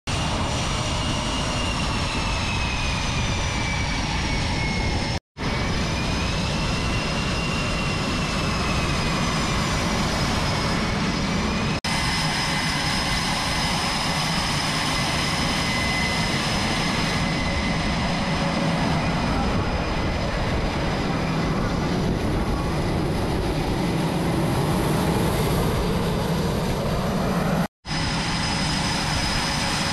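F/A-18 Super Hornet jet engines running on a carrier flight deck: a loud, steady jet rush with high whining tones that slide up and down. The sound cuts out for an instant about five seconds in and again near the end.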